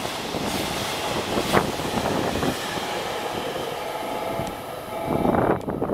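Wheels of a long container freight train rushing past on the rails, with one sharp clack about a second and a half in, as the last wagons go by and the train draws away. The noise swells again briefly near the end.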